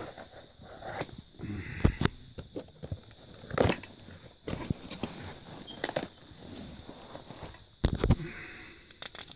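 Cardboard shipping box being opened by hand: cardboard tearing and scraping, and crumpled packing paper and plastic wrap rustling, with a few sudden louder rips.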